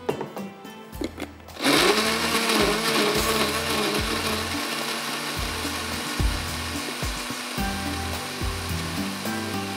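Electric blender switched on about a second and a half in, then running steadily as it purées tomatoes with a little water.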